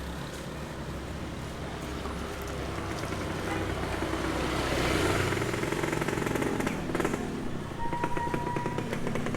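Motor vehicle engine: a steady hum that swells as the vehicle passes about halfway through, followed by a fast, even puttering.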